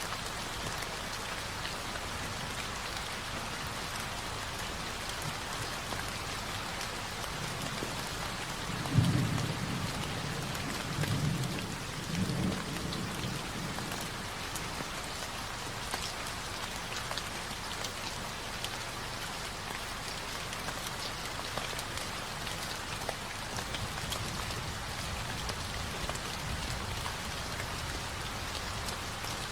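Recorded rain falling steadily, with a low rumble of thunder about nine seconds in that rolls on in a few swells for several seconds.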